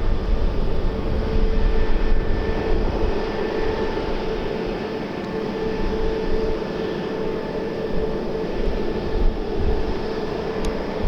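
Aircraft engines running with a steady whine, while wind rumbles and buffets the microphone in gusts.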